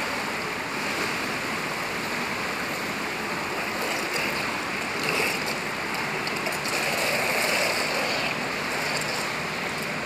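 Steady rushing and splashing water of an indoor swimming pool, with swimmers doing laps.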